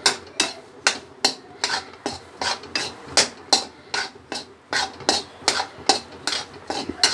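Metal spatula knocking and scraping against a metal kadhai, about two to three strokes a second, as a thick spiced besan mixture is stirred and pressed while it roasts.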